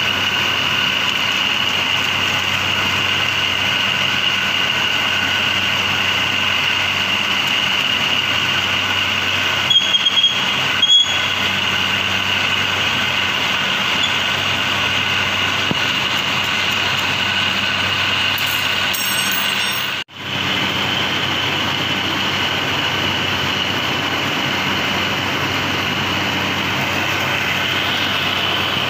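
Steady hum of running paper-straw packing machinery, with a constant high whine over it. There are a few short clicks about ten seconds in, and the sound cuts out for a moment about twenty seconds in.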